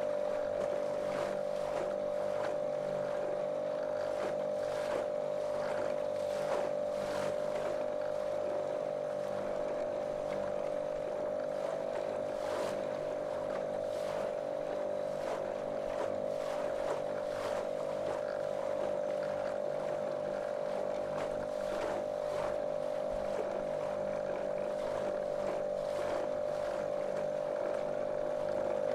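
Small motorboat's outboard engine running at a steady pitch, with the hull slapping and splashing through small waves.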